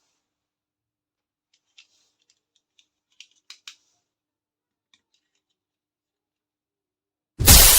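A few faint small clicks and taps, then near the end a sudden loud crash that begins to fade away.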